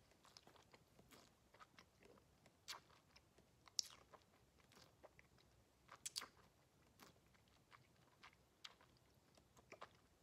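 Faint, irregular wet clicks and smacks of a mouth chewing a sip of whisky, working the spirit around the palate.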